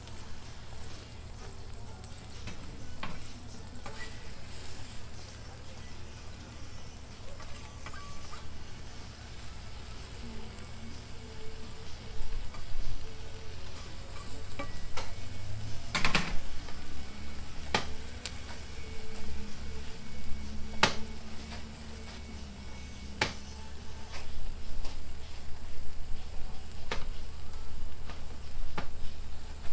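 Bacon strips and egg frying on a flat steel griddle: a steady sizzle, broken by a scattering of sharp clicks and scrapes as a metal spatula works the bacon, the loudest about sixteen seconds in.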